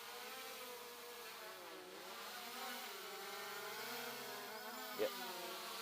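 SJRC F11s 4K Pro quadcopter's motors and propellers whining steadily overhead as it descends slowly, the pitch wavering and dipping about two seconds in as the throttle is adjusted.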